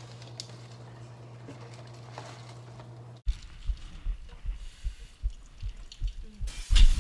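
A steady low hum, then kale being rinsed at a kitchen sink: faint water sounds with irregular dull knocks of handling close to the microphone. A sudden loud burst of noise comes just before the end.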